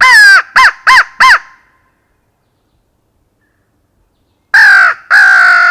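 Hunter's crow call (mouth-blown locator call) blown hard: one long caw and three quick short caws, then after about three seconds of silence two longer caws. It is a locator call, blown to make a hidden gobbler shock-gobble and give away where he is.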